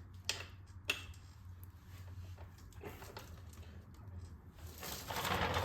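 Loose motorcycle roller chain being handled: a couple of sharp metallic clicks early, scattered small ticks, then a longer rustling scrape of the chain near the end, over a steady low hum.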